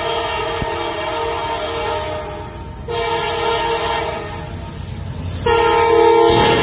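Norfolk Southern EMD SD40-2 locomotive sounding its multi-note air horn as it approaches: three long blasts, the last and loudest starting about five and a half seconds in as the engine draws alongside. Its pitch sags slightly at the very end as the locomotive passes.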